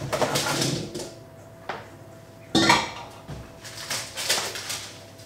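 Bowl and baking tray clattering as oiled, diced pumpkin is tipped out of the bowl onto the baking tray and knocked out. There are two spells of clatter with a single knock between them.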